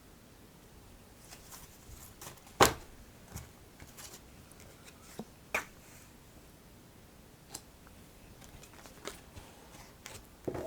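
Oracle cards being handled on a table: scattered light taps and clicks at irregular intervals, one sharper tap about two and a half seconds in.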